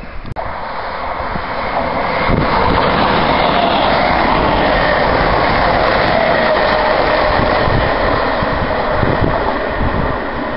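Class 318 electric multiple unit passing close by, a rush of wheels on rail with a steady whine. It builds over the first couple of seconds, holds, and eases off near the end.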